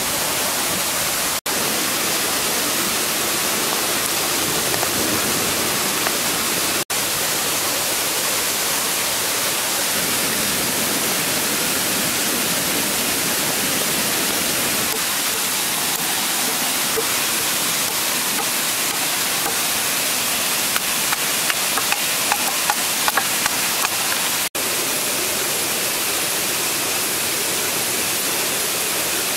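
Steady rushing noise of flowing water, broken for an instant three times. A few light ticks come about two-thirds of the way through.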